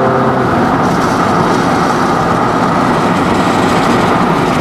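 Steady road and wind noise inside a car driving fast. A steady hum carried over from before stops about half a second in.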